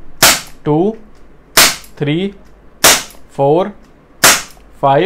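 Crosman SNR357 CO2 revolver firing steel BBs: four sharp pops a little over a second apart.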